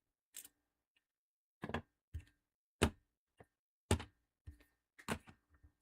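Loose laptop parts (SSDs, hard drives and RAM sticks) set down one after another on a hard work surface: a string of about eight separate short knocks and clacks.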